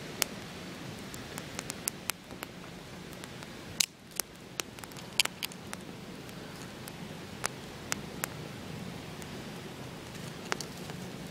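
Small wood campfire crackling: irregular sharp pops and snaps of burning sticks over a steady hiss.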